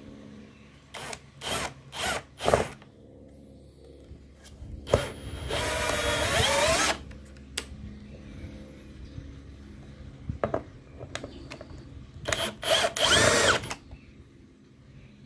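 Bosch UniversalImpact 18V 60 cordless drill's brushless motor driving screws into a softwood board. Each screw gets a few short trigger pulses to start it, then a run of about a second and a half in which the motor's pitch rises and falls with the trigger. This happens twice, the second time near the end.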